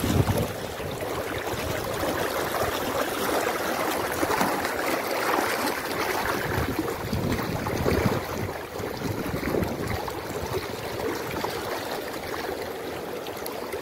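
Steady rush of a fast-flowing river, its choppy current washing along a rocky bank.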